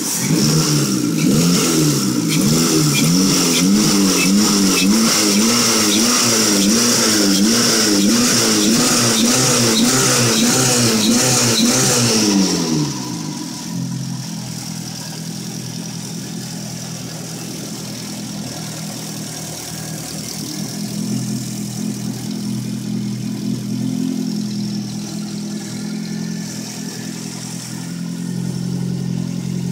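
Turbocharged Toyota Celica ZZT231's 1.8-litre four-cylinder engine revved over and over in quick, even throttle blips, a little more than one a second, with its throttle worked by hand at the throttle body and a high whistle over the revving. About twelve seconds in the blipping stops and the engine settles to a steady idle.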